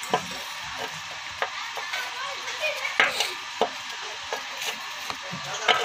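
Smoking sand moulds of freshly cast brass morchangs (jaw harps) hissing and crackling steadily. Scattered clicks and knocks from tongs against the moulds and the metal pan, the loudest about three seconds in and near the end.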